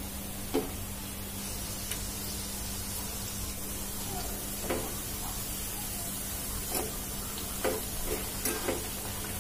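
Pieces of sweetened wheat-flour dough frying in hot ghee in a kadai, a steady sizzling hiss, with a few short clinks of a metal utensil against the pan, most of them in the second half.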